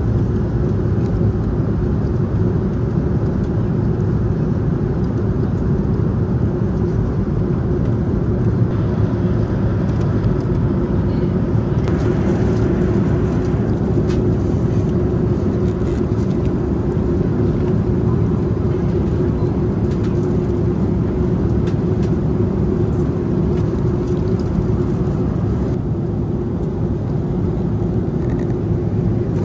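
Steady cabin noise of a Boeing 737-900 airliner in flight: an even low roar of engines and airflow with a steady hum in it. Faint plastic rustles and clicks from a meal tray being handled and packed up sit on top from about halfway through.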